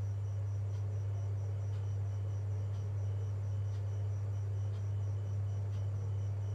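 Steady low electrical hum, with faint high-pitched chirping pulsing evenly about five times a second above it.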